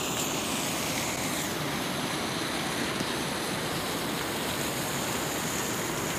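Flowing water rushing steadily.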